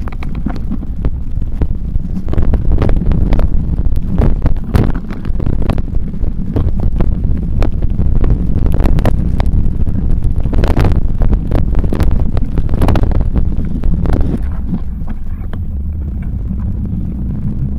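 Wind buffeting the microphone on a moving bicycle, with frequent knocks and rattles as the bike jolts over a rough, muddy woodland path. About fourteen seconds in the knocking stops and it settles to a steadier rumble as the tyres reach smooth tarmac.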